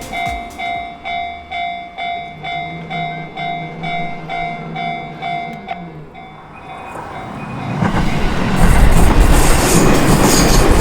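Japanese railway crossing signal's electronic bell dinging about two and a half times a second, dropping much quieter about six seconds in. From about eight seconds a JR Chuo Line electric train passes over the crossing, loud, with rumble and the clatter of wheels over rail joints.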